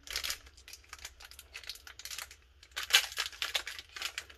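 Foil Pokémon booster pack wrapper crinkling as it is handled and torn open. The crackling comes in uneven bursts, loudest about three seconds in.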